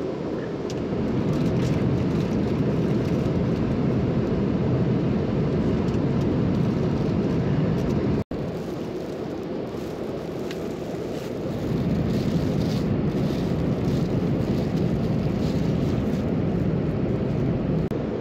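Steady low roar of an Airbus A330-300's cabin in cruise, engine and airflow noise heard from an economy seat, cutting out for an instant about eight seconds in. Faint crinkling of a blanket's plastic wrapping near the end.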